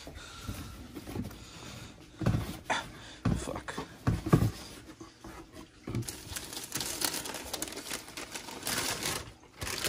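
A cardboard shoe box knocked and handled a few times, then the packing paper inside crinkling and rustling for a few seconds as a hand pulls it back.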